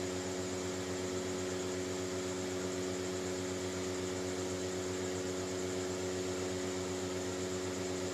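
Steady electrical hum with a hiss underneath, unchanging throughout, from a mains-powered appliance running in the room.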